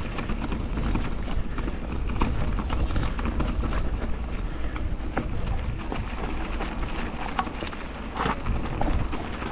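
Mountain bike rolling fast down a dirt and gravel trail: steady low rumble of tyres and air, with scattered clicks and rattles from the bike over the ground.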